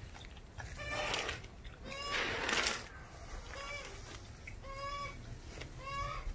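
A short, high animal call repeated about once a second, each one rising and falling, with a couple of short noisy bursts between the calls.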